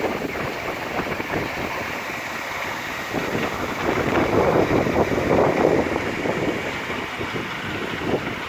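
Portable line boring machine re-boring a worn pin bore on a JCB excavator's boom: a steady mechanical cutting noise that swells louder around the middle.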